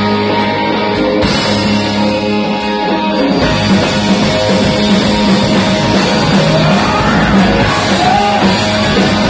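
Live rock and roll band playing loud, led by electric guitars, with some singing.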